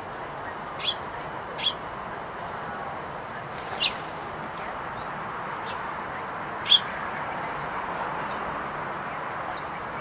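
Four short, sharp songbird chip calls, the last about two-thirds of the way in the loudest, over a steady background hiss of outdoor ambience.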